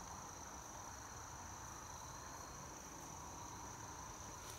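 Faint, steady insect chorus: a constant high-pitched trill.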